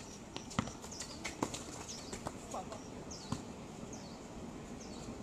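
Basketball bouncing and players moving on an outdoor concrete court: a few sharp, irregular knocks in the first three seconds, with several short high chirps scattered through.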